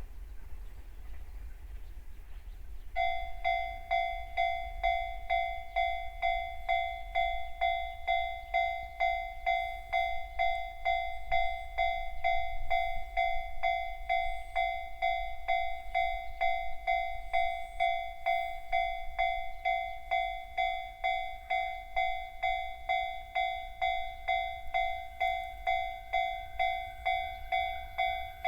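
Japanese railway level crossing alarm, the JR standard electronic type, starting about three seconds in and then ringing steadily at about three strikes every two seconds, warning of an approaching train.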